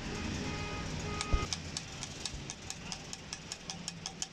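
A steady low machine hum, with a single knock a little over a second in and a quick run of light metallic clicks, about five a second, through the last two seconds.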